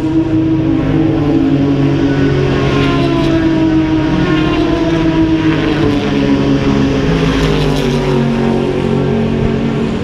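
Race car engines running on the circuit: a loud, steady mix of several engine notes that drift slowly up and down in pitch.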